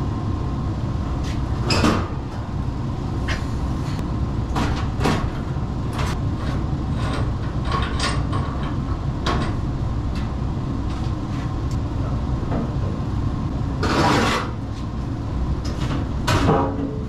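Intermittent clanks, knocks and clatter of sheet-metal panels and tools as an older Rheem downflow furnace is being taken apart, over a steady low hum. A longer clatter comes near the end.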